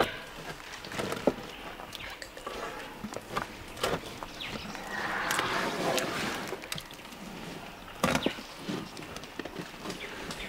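African elephant's tusk gouging and scraping bark off a tree trunk: irregular cracks and snaps of splitting wood, with a longer rasping scrape around the middle.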